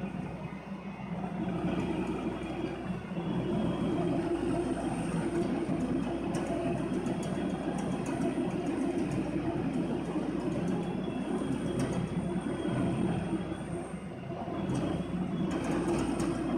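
ZEDA-PN5000 high-capacity document shredder and its discharge conveyor running steadily at full output, a dense mechanical rumble with a thin high whine over it as shredded paper pours off the belt. It grows louder about a second and a half in.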